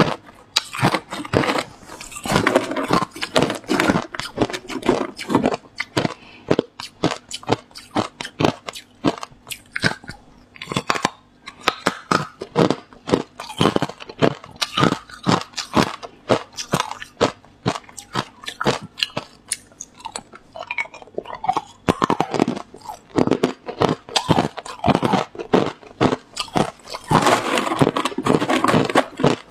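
Hard clear ice being bitten and chewed: a quick, irregular run of sharp crunches, several a second, as the chunks break up between the teeth.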